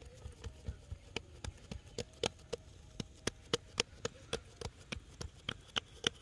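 Fingertips patting a sheet of minced chicken mixture flat against a wooden cutting board: a quick run of soft taps, about four a second.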